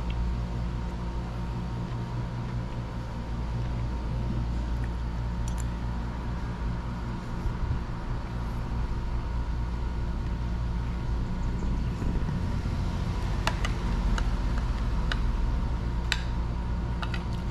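A steady low mechanical hum, with a few light clicks of a metal spoon against a plate, most of them in the second half.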